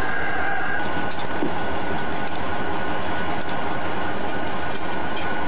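Diesel locomotives idling: a steady, evenly pulsing low engine rumble with a thin steady whine over it and a few faint clicks.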